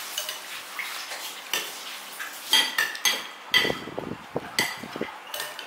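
Metal cutlery clinking and scraping against dishes during a meal: about six ringing clinks, with a few duller knocks between them.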